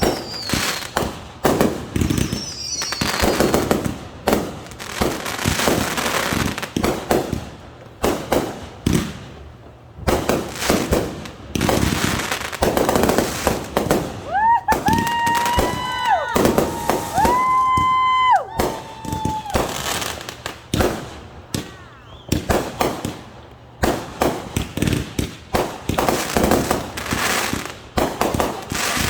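Consumer fireworks bursting in rapid, irregular succession, with sharp bangs and crackle. Around the middle, several whistles overlap: each rises briefly, then holds its pitch for a second or so.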